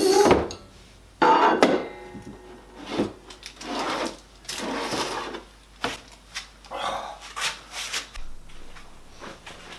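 Wooden boards and pieces being handled and moved: an irregular run of knocks, scrapes and rubs of wood on wood, the loudest near the start and about a second in.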